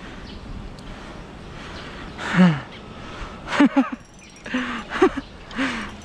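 A man's short wordless exclamations, about six 'ooh'-like cries each falling in pitch, the first and loudest about two seconds in, uttered while playing a hooked fish on a rod.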